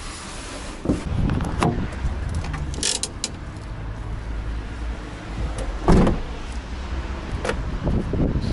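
Knocks and rattles around a van, then a van door shutting with a heavy thud about six seconds in, over a low steady rumble.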